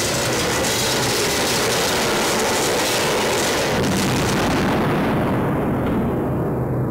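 A loud, sustained rumbling roar, like an explosion, that turns duller over its last two seconds and then cuts off suddenly.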